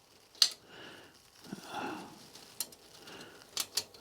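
Bicycle spokes being threaded through a hub and rim by hand: a few sharp metallic clicks and ticks, the loudest about half a second in and two more close together near the end, with softer handling noise in between.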